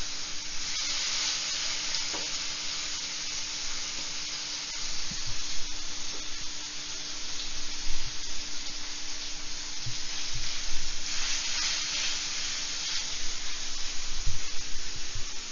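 Masala-coated rohu pieces frying in hot coconut oil with curry leaves, sizzling steadily, with a few low thumps scattered through.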